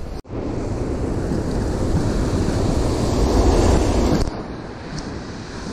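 Ocean surf breaking and washing up the sand, with wind buffeting the microphone. The rush builds to its loudest about three and a half seconds in, then drops away suddenly.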